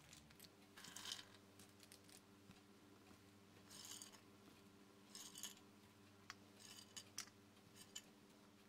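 Near silence: a faint steady hum, with a few soft short scrapes and clicks of cashews and raisins being laid onto a platter of rice.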